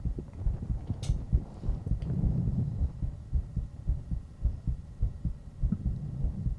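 Human heartbeat recorded close-up: a steady run of low, dull thumps, the heart at rest.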